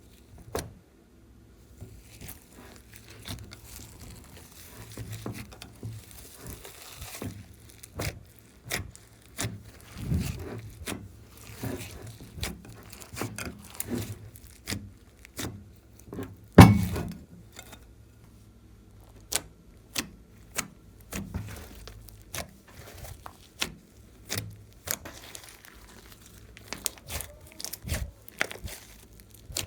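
Hands squishing and stretching slime, with irregular sharp sticky clicks and pops throughout; the loudest pop comes a little past halfway.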